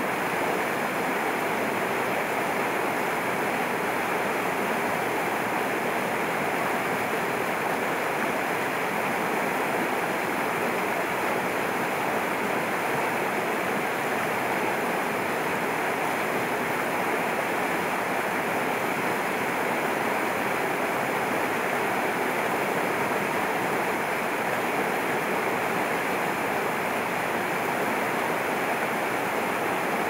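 A fast mountain stream rushing and splashing over rocks in a steady, even roar of white water.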